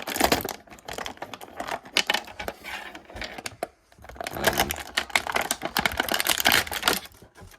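Plastic toy packaging crinkling and clicking in quick, irregular bursts as it is handled and a figure is taken out. There is a short pause about halfway through.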